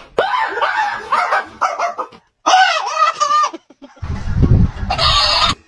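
Dog whining and yelping in two runs of high, rising-and-falling calls. About four seconds in, a short burst of low rumbling noise takes over.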